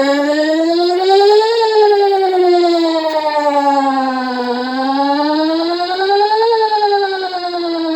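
A single speaker driver from a Whelen WPS 4008 electronic siren sounding the McKinney, Texas siren tone: a loud, slow wail whose pitch rises and falls about every five seconds.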